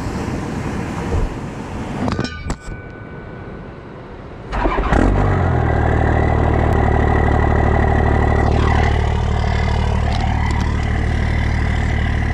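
Truck engine running steady and loud close to the microphone from about four and a half seconds in. Before that there is a noisy stretch with a few knocks.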